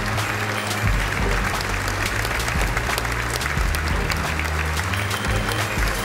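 Large audience applauding steadily, with dense clapping over music that has a prominent bass line.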